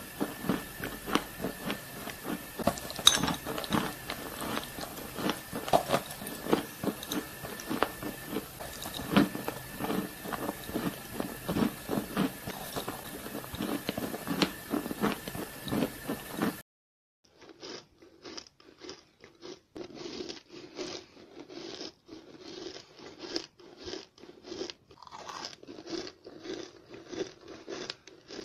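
Close-up crunching and chewing as a crisp chalky substance is bitten off and chewed, many crunches every second. About 17 s in the sound drops out briefly and resumes in a duller, narrower recording of the same kind of crunching, while a faint steady high tone runs under the first part only.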